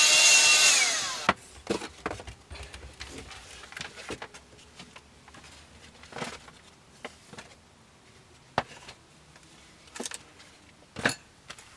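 A handheld power saw's motor whining at a steady pitch, then winding down and stopping about a second in. After that come scattered knocks and clatter of things being handled and set down.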